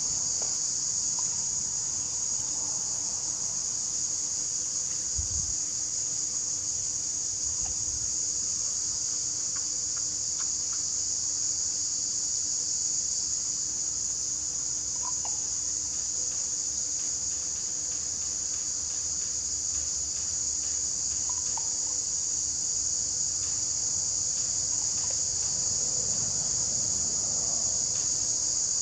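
Steady, shrill insect chorus, a continuous high-pitched trill that does not let up, over a faint steady low hum.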